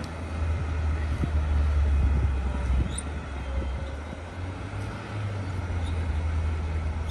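Car driving: a steady low rumble of road and engine noise that swells slightly about two seconds in.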